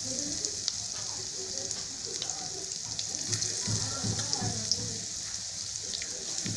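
Battered potato-and-onion pakoras deep-frying in hot oil in a pan: a steady sizzle with scattered small crackles and pops. More pieces of the besan batter are being dropped into the oil.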